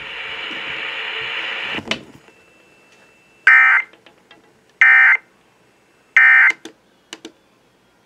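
A RadioShack weather alert radio's speaker gives a steady radio hiss that cuts off with a click about two seconds in. Then the radio gives three short electronic beeps about a second and a half apart as its front-panel buttons are pressed, with faint button clicks after them.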